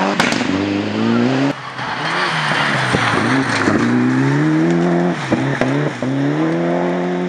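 Rally car engine revving hard through the gears, its pitch climbing and then dropping sharply at each of several upshifts, with gravel and tyre noise under it.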